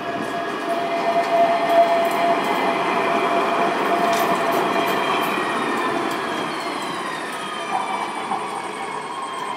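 Alstom Citadis 305 steel-wheeled tram passing close by: a rolling rumble with a steady whine that grows louder for the first few seconds, then eases off as the tram moves away, with several whining tones falling in pitch.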